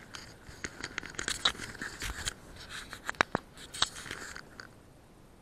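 Crackling rustle, scrapes and sharp clicks as the camera is handled and moved through tall grass. The loudest clicks come about one and a half, three and almost four seconds in, and the noise dies away shortly before the end.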